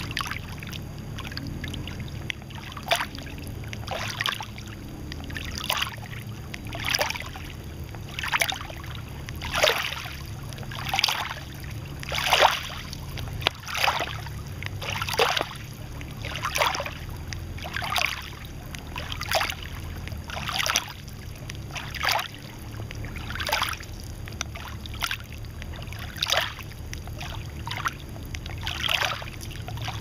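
Small lake waves lapping and splashing against the shore, one soft splash about every second and a half, some louder than others.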